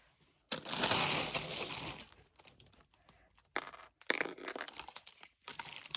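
A rustling, crinkling noise lasting about a second and a half, followed by a few scattered light clicks and taps.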